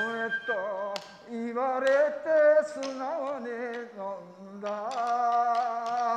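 A solo voice sings a slow Japanese popular song in enka style, with long held notes that waver in pitch. A few sharp taps or clicks sound over it.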